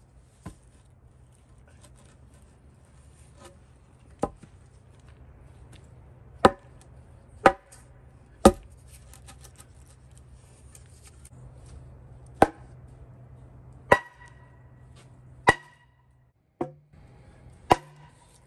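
Sharp knocks on a pressure-treated wooden shed post, about ten of them spaced irregularly a second or more apart, some with a brief ringing tail, as the post is knocked loose.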